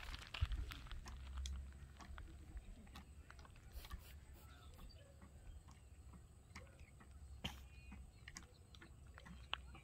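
Faint outdoor background: a low rumble of wind on the microphone, stronger in the first second or two, with scattered light clicks, two of them sharper near the end.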